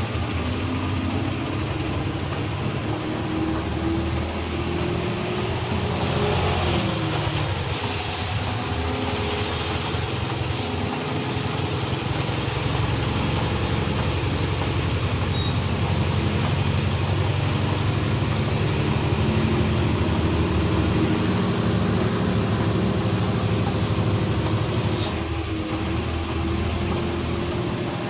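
Ashok Leyland 12-wheel lorry's diesel engine running steadily as the truck descends a ghat road, with a faint engine note that drifts slightly in pitch over a constant hiss.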